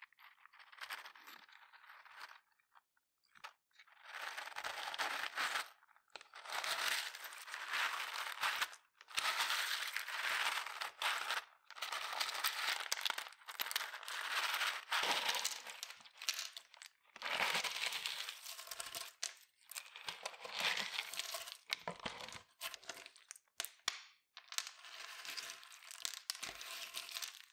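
In-shell sunflower seeds crackling and clicking against each other as hands knead them into clear slime, in irregular bursts with short pauses; quieter for the first few seconds.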